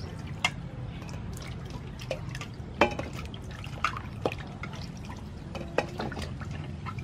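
Vegetables being washed by hand in a stainless steel bowl of water: splashing and dripping, with irregular sharp knocks and splashes now and then, the loudest about three seconds in.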